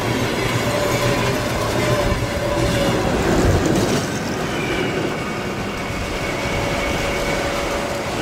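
Heavy freight train passing close at speed: open gondola wagons rumbling and clattering on the rails, then the rear pusher electric locomotive (2ES5K Ermak) going by about four seconds in, with faint steady tones over the noise.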